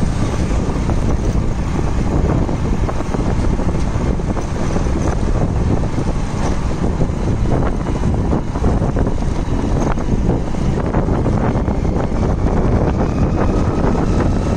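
Loud, steady wind buffeting the microphone of a moving vehicle, over a low rumble of engine and road noise.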